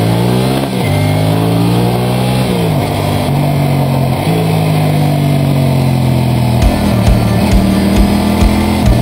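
Motorcycle engine accelerating through the gears: its pitch climbs and drops sharply at each of three upshifts, then holds steady at cruising speed.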